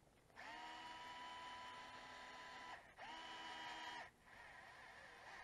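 DeWalt cordless electric screwdriver motor running in two bursts, about two and a half seconds and then about one second, with a steady whine, as it drives screws into the RC truck's plastic parts.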